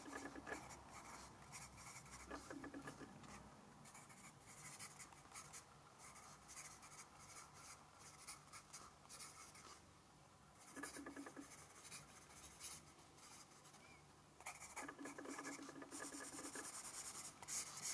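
Staedtler Noris pencil writing on Fabriano Ecoqua paper: faint scratching of the graphite in short strokes, with brief pauses between words.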